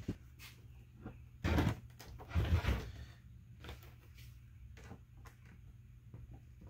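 A 3D-printed plastic hive section being tipped up and set on its side on a wooden workbench: two short scraping knocks about a second and a half and two and a half seconds in, followed by light clicks of plastic parts being handled.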